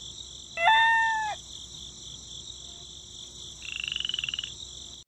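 Nature ambience: a steady, high, insect-like chirring throughout. About half a second in there is one loud pitched animal call lasting under a second, and near the four-second mark a brief, rapidly pulsed trill.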